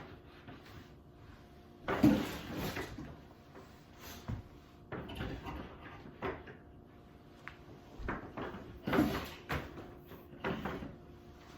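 Electrical cable being pulled and fed along a wireway: irregular rustling, scraping and knocking, loudest about two seconds in, with more bursts of handling later.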